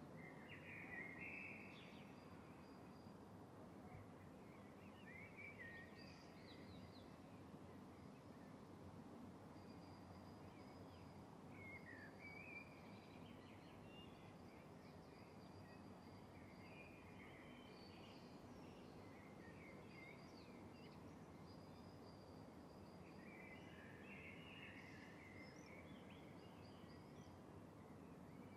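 Faint ambience of birds chirping on and off over a low, steady background noise.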